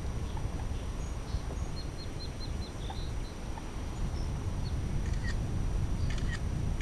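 Small birds chirping: a quick run of about six short high chirps, then more short calls near the end, over a steady low rumble.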